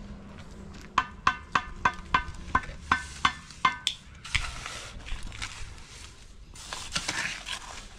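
Block-laying work: a steel tool taps about ten times in quick succession, roughly four a second, with a ringing metallic tone. Then a shovel scrapes twice through mortar in a steel wheelbarrow.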